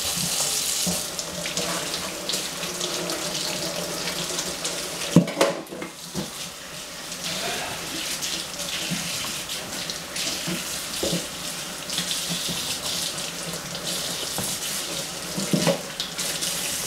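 Kitchen tap running steadily into a sink as celery stalks are rinsed, with a few knocks, the sharpest about five seconds in.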